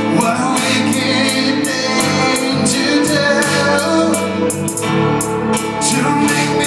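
Live band playing a slow rock ballad, with cymbals keeping a steady beat, recorded from the crowd over a club PA.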